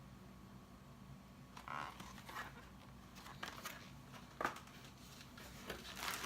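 Faint rustling and a few light clicks of boxed items and their packaging being handled, over a low steady hum.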